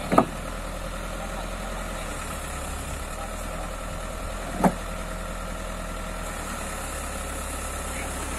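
A vehicle engine idling steadily. Two short sharp knocks of precast concrete slabs striking each other stand out, one right at the start and one about four and a half seconds in.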